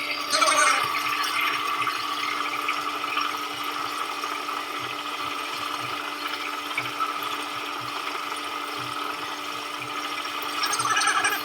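Samsung top-loading washing machine running a test cycle: a steady rush of water with a constant motor or pump hum underneath, which starts suddenly just before and holds unchanged.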